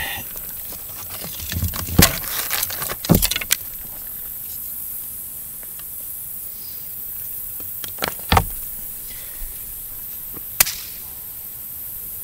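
Sharp clicks and knocks from fat-wood kindling sticks being handled and set among stones while a small fire is being lit, coming in short clusters about two, three and eight seconds in and once more near the end, over a steady faint hiss.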